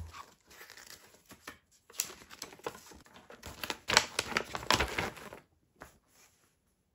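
Cardboard packaging and a paper instruction leaflet being handled and unfolded: irregular rustles, crinkles and light taps, stopping abruptly about a second and a half before the end.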